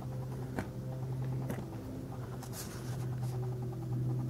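A steady low hum with a few small clicks and a brief rustle, about half a second, a second and a half and two and a half seconds in: handling noise as the camera and the diecast model are moved.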